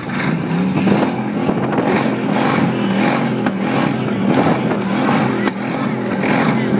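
Demolition derby car engines running and revving, the pitch rising and falling.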